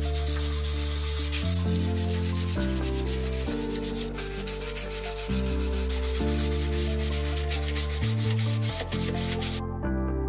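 Bare wood being hand-sanded with 240-grit sandpaper on a sanding block, in quick back-and-forth rasping strokes that stop near the end. The sanding is smoothing glue marks and raised grain before lacquering. Soft background music plays underneath.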